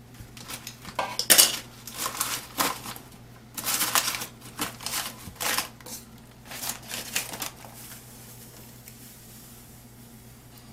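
Kitchen utensils clattering and scraping against a pot in irregular bursts, the loudest about a second in, while ingredients are added for a pickling brine. The clatter stops about three-quarters of the way through.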